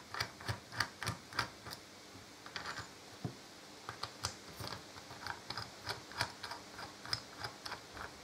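Light, quick clicks from a ratcheting hex driver undoing the bolts that hold the two halves of a chrome Harley-Davidson brake caliper, about three clicks a second with a short pause about two seconds in.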